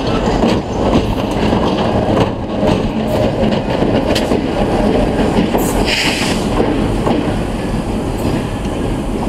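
Diesel locomotive 507 rolling past and away on the rails, a steady rumble of the engine and wheels with a few faint clicks. A brief higher-pitched hiss about six seconds in.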